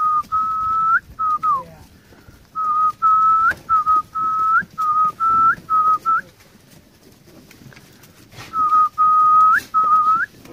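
A person whistling a string of short, clear notes on nearly one pitch, each ending in a quick upward flick, with one falling glide early on. The notes come in three runs separated by pauses of a couple of seconds.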